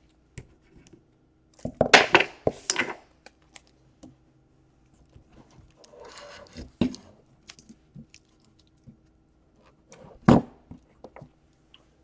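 Kapton tape being peeled off its roll and pressed down around the power jack on a laptop motherboard, with a quick run of peeling noise about two seconds in and scattered handling clicks. A sharp knock about ten seconds in.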